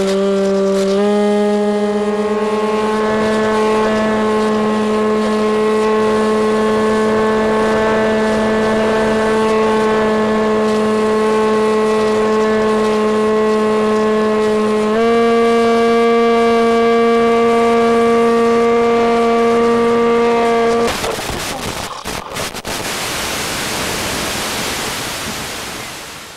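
Electric motor and propeller of an Easy Star RC plane, picked up by the onboard FPV audio, giving a steady whine that steps up in pitch about a second in and again about fifteen seconds in. About twenty seconds in it cuts off abruptly with a few sharp cracks as the plane crashes, and a loud hiss of radio static from the broken-up video link follows, fading near the end.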